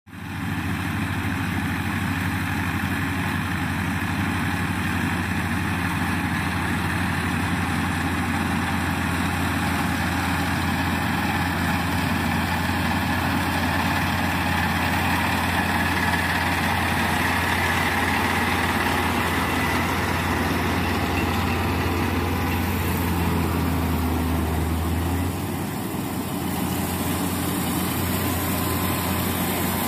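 Yanmar combine harvester's diesel engine running steadily with mechanical clatter over a deep hum. Near the end the deep hum drops away and the machine noise carries on.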